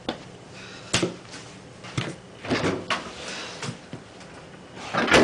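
Sharp knocks and thumps, roughly one a second, with scuffling between them, as people move and bump about on a hard kitchen floor; the loudest cluster of knocks comes near the end.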